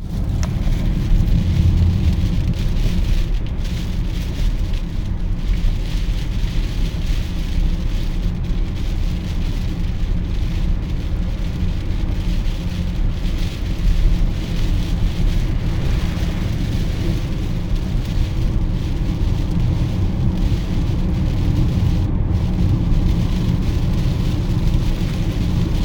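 Heavy typhoon rain beating on a car driving on a wet expressway, over a steady low rumble of tyres and road noise.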